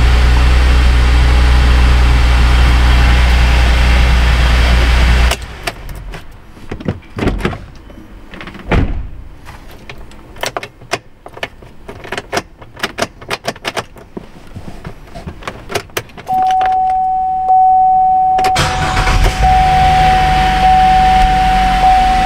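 Chevy Traverse's engine and radiator cooling fans running on high, a loud steady hum that cuts off abruptly about five seconds in as the vehicle is switched off. Light clicks and taps follow. Then a steady electronic chime tone from the dash begins, and the running noise comes back about two seconds later.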